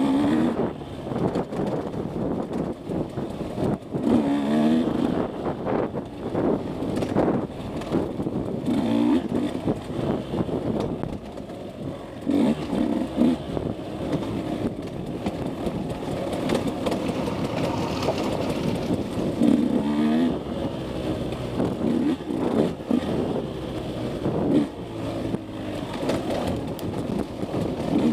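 KTM 150 SX two-stroke single-cylinder dirt bike engine being ridden hard, revving up and dropping back again and again, its pitch climbing with each pull of the throttle. Scattered knocks and rattles from the bike over the bumpy trail.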